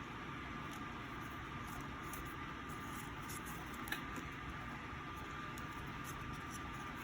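Steady background room noise with a faint, steady high-pitched hum, and a single small click about four seconds in.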